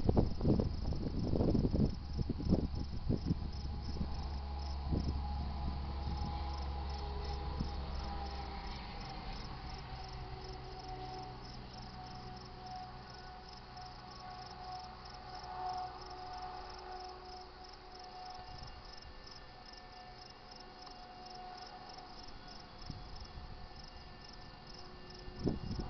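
Railroad grade-crossing bell ringing steadily and rapidly while the last of a freight train rumbles away with a few wheel clacks, fading out over the first nine seconds or so. Near the end there is a sudden louder noise.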